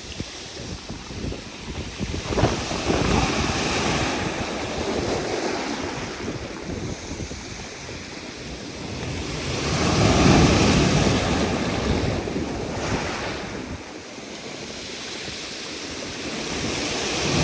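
Sea waves washing in and out over a stony shore, the surf swelling and ebbing, loudest about ten seconds in, with wind noise on the microphone.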